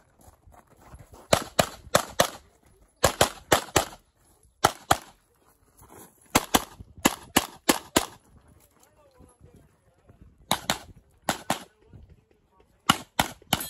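Pistol shots fired in rapid strings of two to six, with short pauses between the strings.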